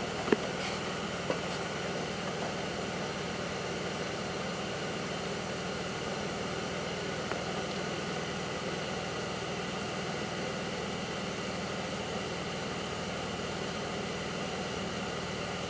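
2002 Pontiac Grand Prix's 3800 V6 engine idling steadily, an idle the owner reports as rough and prone to bogging. Two short clicks sound near the start.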